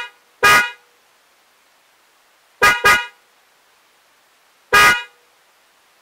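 DENSO J-Horn Hyper electric snail-type car horn sounding in short toots: one about half a second in, a quick double toot near three seconds, and another near five seconds, with the end of an earlier toot right at the start.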